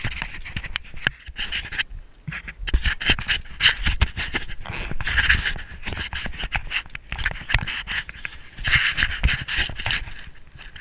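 A person breathing hard in loud puffs every two to three seconds, with rubbing and knocking of clothing or gear close to the microphone.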